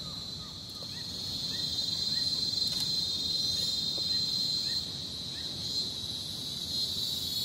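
Steady high-pitched insect chorus holding one pitch, swelling a little about a second in. Faint short bird notes sound behind it.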